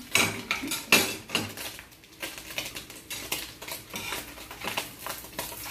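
Metal cooking utensils clinking and scraping against a plate, a bowl and a wok, in short irregular knocks.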